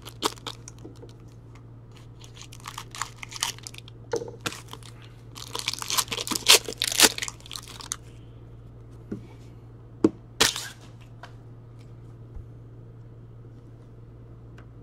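Foil wrapper of a hockey card pack being torn open and crumpled by hand, in crinkling bursts that are loudest about six to seven seconds in, with a sharp crackle near ten seconds and only faint rustling after.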